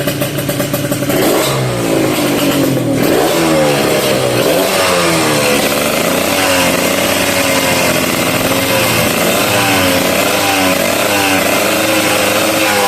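Kawasaki Ninja RR's 150 cc two-stroke single, fitted with a WRX GP racing exhaust and a PJ38 carburettor, idling briefly and then being revved over and over, the pitch climbing and falling with each blip of the throttle and held steadier for a few seconds midway.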